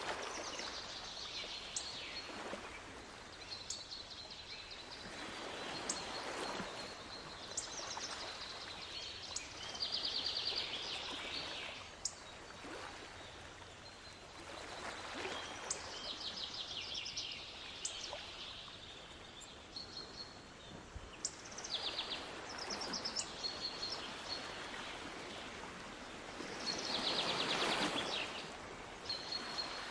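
Sea waves washing in and drawing back in slow swells, the biggest near the end, with songbirds chirping and giving rapid trills over them.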